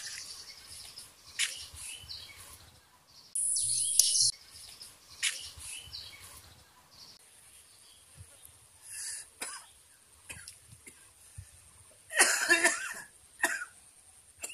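A man coughing in short bursts, the loudest near the end, with faint bird chirps in between.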